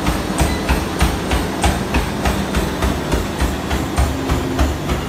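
Rapid, even footfalls pounding a motorised treadmill belt at a 20 km/h sprint, about three strides a second, over the steady low rumble of the treadmill's motor and belt.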